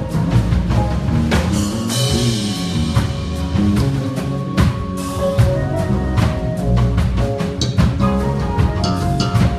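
Live band playing a gospel-style groove: drum kit hits with cymbal crashes about two and five seconds in, over a moving bass line and held keyboard chords.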